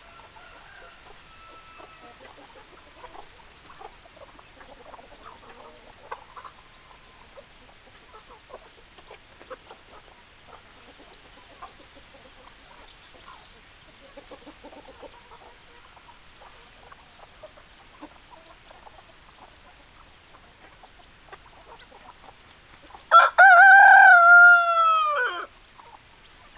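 Chickens clucking softly, then a rooster crows once loudly near the end, a call of about two and a half seconds that drops in pitch as it finishes.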